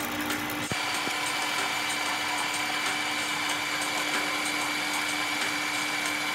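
Metal lathe running, its tool turning down a steel shaft: a steady machine hum with a high, even whine that sets in under a second in.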